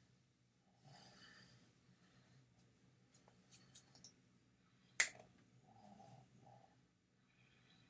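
Faint small clicks and soft rustling in a small room, with one sharp click about five seconds in.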